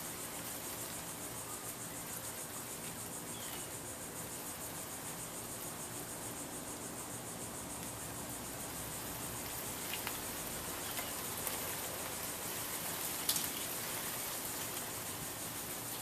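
Casablanca Columbia II ceiling fan running on its lowest speed: a steady, quiet motor hum with the air of the slowly turning blades. A faint click about ten seconds in and another about thirteen seconds in.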